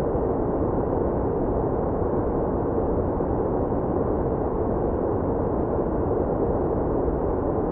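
Steady, even masking noise with no high hiss, deep and muffled like brown or low-passed noise. It holds unchanged without any individual sounds in it.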